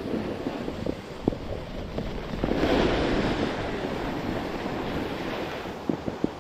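Skis sliding and scraping over snow, with wind buffeting the microphone. The hiss swells louder for a few seconds from about two and a half seconds in.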